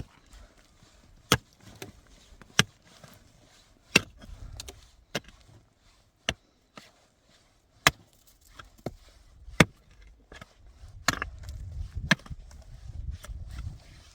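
A series of sharp, chopping knocks, one about every second or so at an uneven pace, over a low rumble that grows stronger near the end.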